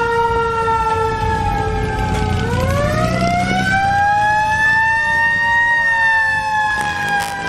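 A siren wailing, its pitch sliding slowly down, then up for about three seconds and down again, over a low rumble.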